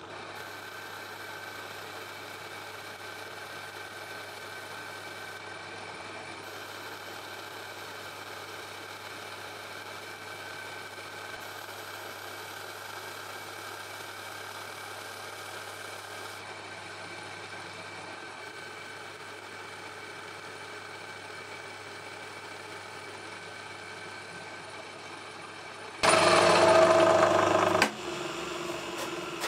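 Metal lathe running with a brass bar spinning in its chuck: a steady hum with a thin high whine. Near the end, a much louder harsh noise lasts about two seconds, and a different, quieter steady sound follows.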